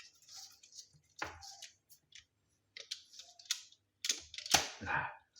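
Taffware TK0742 automatic wire stripper clicking and snapping as it is worked to cut a cable with its middle cutter, with the loudest snaps about four and a half seconds in.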